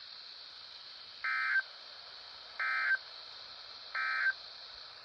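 NOAA Weather Radio EAS end-of-message data bursts: three short warbling digital tone bursts about 1.4 seconds apart, the SAME code that marks the end of the alert. They sound over a steady static hiss from weak reception.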